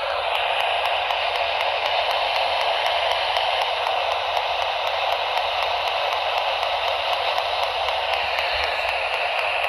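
AM radio receiver giving a steady hiss of static, with no clear station coming through.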